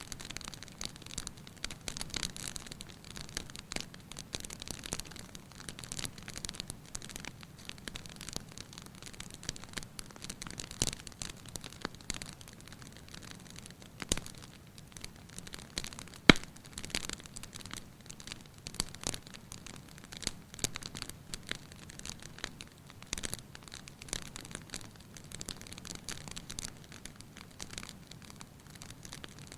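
Fireplace fire crackling with frequent small pops and snaps, and a sharper pop about sixteen seconds in.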